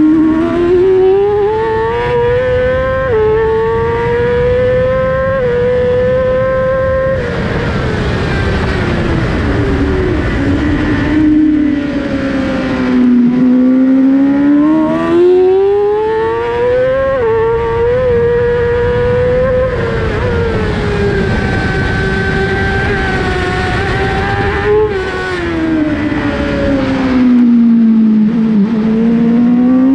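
Yamaha YZF-R6 inline-four engine at racing speed, its pitch rising through the gears with brief steps at the shifts and falling away under braking and downshifts, over and over through the corners, with a loud rushing noise beneath it.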